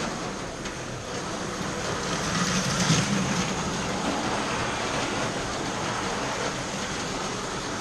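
Slot cars racing on the track: a steady whir of small electric motors and wheels running in the slots, swelling briefly about three seconds in as cars pass close.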